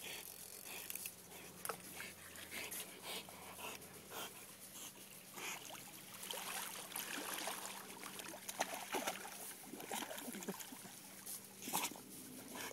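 A Rottweiler paddling and lunging through shallow water, making irregular small splashes and sloshes.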